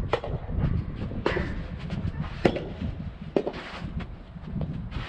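Soft tennis rackets striking rubber balls: several sharp pops roughly a second apart, over strong wind rumbling on the microphone.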